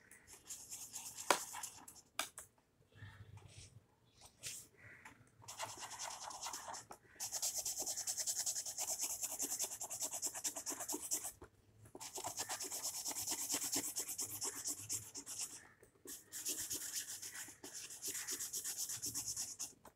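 A dark yellow crayon scribbling on paper as a picture is coloured in, in fast back-and-forth strokes. It starts with a few faint rubs, then runs in long spells of steady scratchy rubbing, with brief pauses about seven, eleven and sixteen seconds in.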